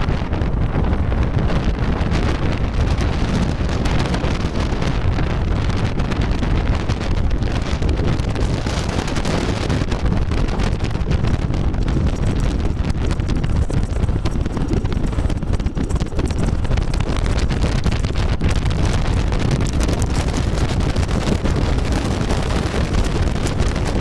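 Loud, steady wind buffeting the microphone of a motorcycle moving at road speed, a dense rush heaviest in the low end.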